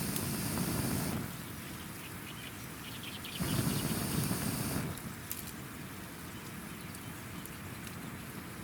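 Campfire by a river: two whooshing rushes of air over the fire, each about a second and a half long, the second starting about three seconds in. Between them the fire crackles with short snaps over the steady rush of the river.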